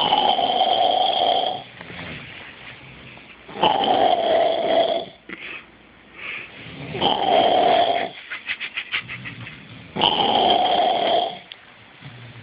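Loud snoring: four long snores about three seconds apart, each lasting about a second and a half, with a quick fluttering rattle between the third and fourth.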